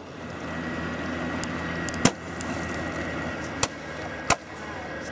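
Steady hum of radio-controlled model warships running on the water, broken by three sharp cracks: one about two seconds in, then two more close together near the end.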